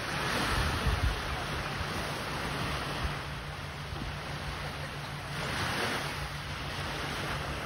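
Small waves washing onto a sandy beach, the surf swelling twice, with wind rumbling on the microphone.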